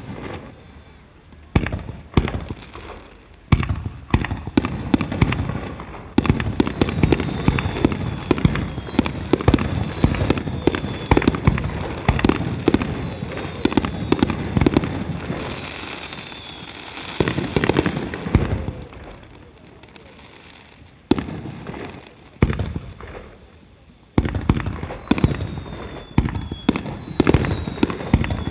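Aerial fireworks display: shells bursting in quick succession, with long stretches of dense crackling and several thin whistles falling in pitch.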